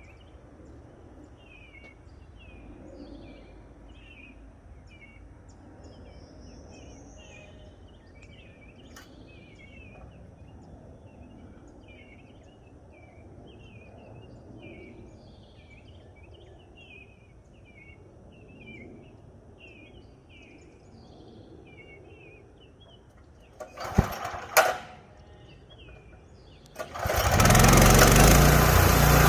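Small birds chirping steadily in quick repeated notes over a low background. About 24 seconds in come two short, loud sharp sounds, and a few seconds later the Hud-son Homesteader 30 sawmill's small gasoline engine starts and runs loudly and steadily.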